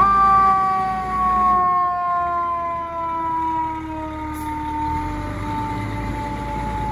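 A fire truck's mechanical siren winding down: one long tone that slowly and steadily falls in pitch. Under it is the low rumble of the tower ladder truck's engine as the truck pulls past.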